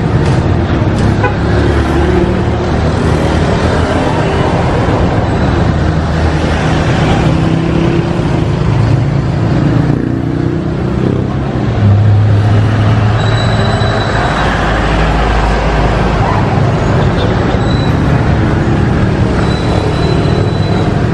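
Road traffic: vehicle engines running close by in a steady rumble, with a deeper engine rumble swelling for a couple of seconds about two-thirds of the way in.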